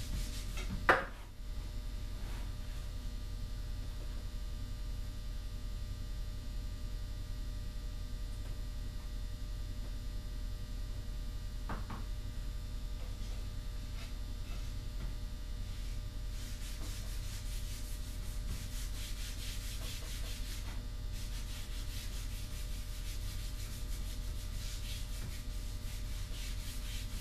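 Cotton cloth rubbed over a bare maple rifle stock, applying stain in faint repeated strokes, over a steady low hum. A single sharp knock comes about a second in.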